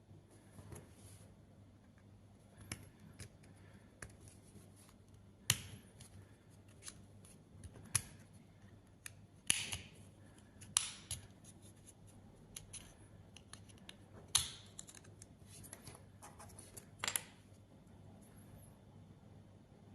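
Scattered small plastic clicks and snaps from a smart tag's case being handled and pried open to change its battery, with about six louder, sharper snaps spread through.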